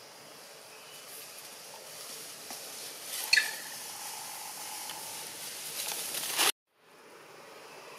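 Steady outdoor hiss with one brief high-pitched animal squeak about three seconds in. The sound drops out suddenly for a moment near the end, then the hiss returns.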